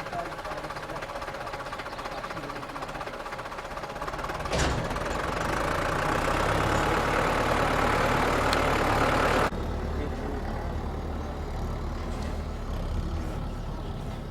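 A vehicle engine running steadily. It grows louder and fuller from about four and a half seconds in, then cuts back abruptly a few seconds before the end, leaving a lower steady running sound.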